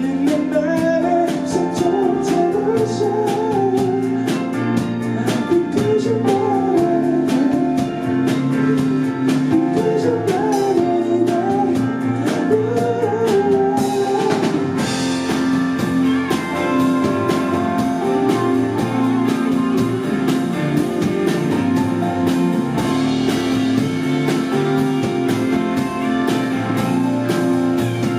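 A band playing: drums, bass and guitar. A bending, wavering lead melody sits on top through the first half.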